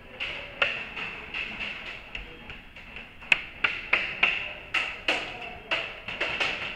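Background music with a fast, clicking percussive beat, about three sharp ticks a second.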